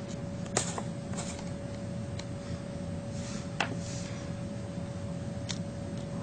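Small sharp clicks and light scraping from a tiny screwdriver working the two bottom screws out of an iPhone 3G, three distinct ticks over a steady hum.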